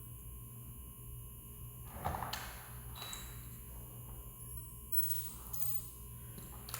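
Faint room tone with a few light knocks and clicks, the loudest about two seconds in.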